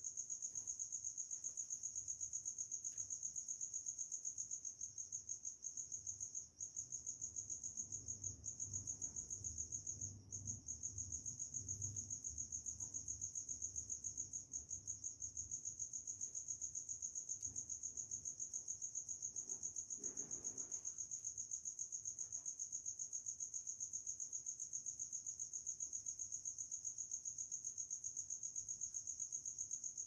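Cricket-like insect chirping: one high, steady tone pulsing rapidly and evenly without a break.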